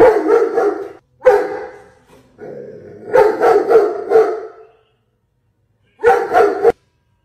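A dog howling and barking in a series of drawn-out, pitched cries: two short ones, a longer one of about two seconds, and a last short cry near the end.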